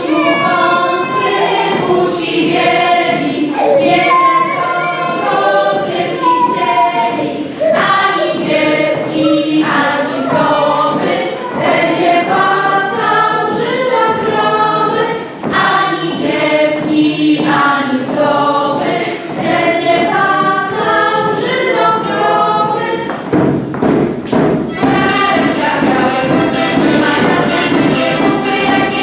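A folk ensemble singing a Polish folk song in chorus while dancing, with thuds of steps on the wooden stage. Near the end, a steady beat of sharp, bright strikes, about three a second, joins the singing.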